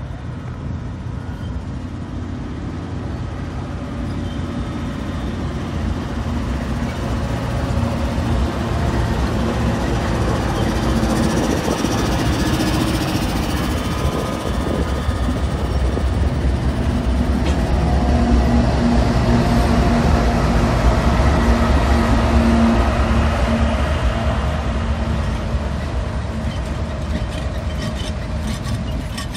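Norfolk Southern diesel freight locomotives passing close by, the engines' steady drone and low rumble growing louder to a peak about two-thirds through and then easing. Near the end the freight cars roll past with sharp clicks of wheels over the rails.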